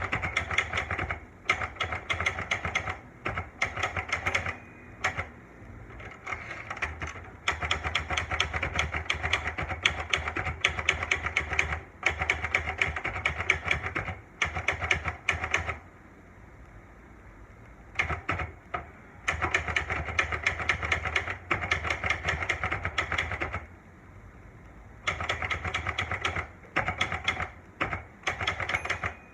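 Olivetti Lettera 92 manual portable typewriter being typed on: rapid runs of key strikes clacking against the platen, broken by a few short pauses.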